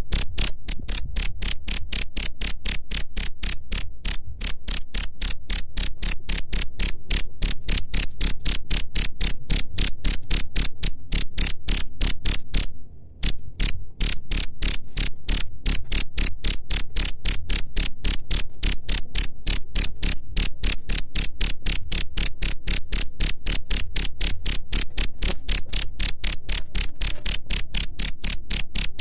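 Cricket chirping: a fast, even train of short high-pitched chirps that pauses for about a second roughly halfway through, then resumes.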